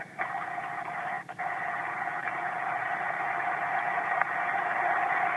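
Steady hiss of a telephone line heard over a Globalstar satellite phone call, thin and narrow like phone audio, with a faint steady hum-like tone in it. The sound drops out briefly right at the start and again about a second in, then grows slowly louder.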